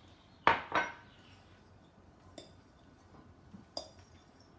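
A glass measuring cup set down with two sharp clinks about half a second in, then a fork clicking and scraping against a glass mixing bowl as pasta dough is stirred.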